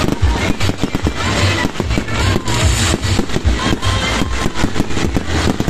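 Fireworks display: a dense, continuous run of crackles, pops and bangs from aerial shells bursting, with music playing underneath.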